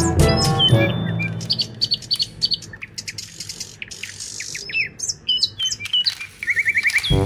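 Birds chirping: many short high chirps and quick downward whistles, with a fast trill near the end, as background music fades out in the first second or two.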